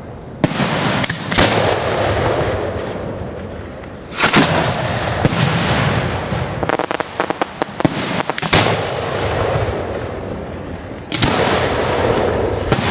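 1.3G display fireworks shells bursting: a series of sharp booms, the loudest about four seconds in, each trailing off in a rumble. A rapid string of crackling reports comes between about six and eight seconds in.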